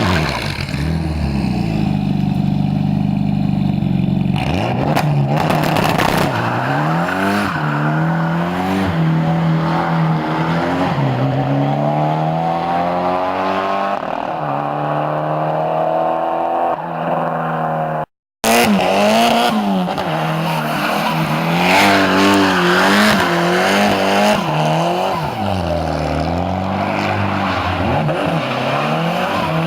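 Twin-turbo Ford Pinto four-cylinder in a Ford Sierra under hard acceleration, its note climbing and dropping back again and again as it shifts up through the gears. The sound cuts out briefly about eighteen seconds in.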